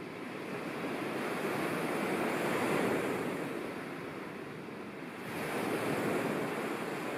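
Small waves washing onto a sandy lake beach, a steady surf noise that swells about three seconds in and again near the end.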